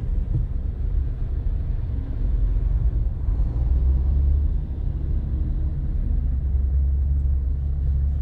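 Steady low rumble of a car's engine and tyres heard from inside the moving car's cabin in slow traffic, a little heavier from about three seconds in.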